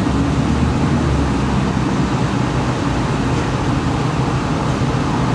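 A steady low rumble with a hum in it, unchanging throughout.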